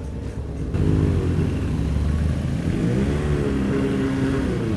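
Motorcycle engine pulling away, coming in under a second in, its pitch climbing and then dropping back as it accelerates and shifts.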